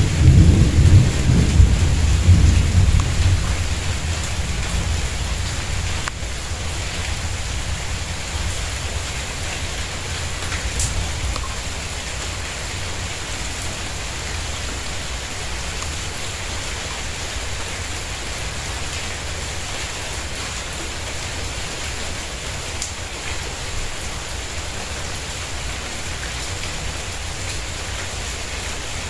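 Steady rain falling on a tiled patio and garden plants, with a low rumble of thunder at the start that rolls away over the first few seconds.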